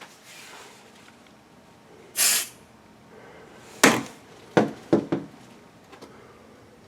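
A short hiss of Smoke Sabre aerosol test smoke sprayed at a smoke detector about two seconds in, followed by a few sharp knocks and clicks.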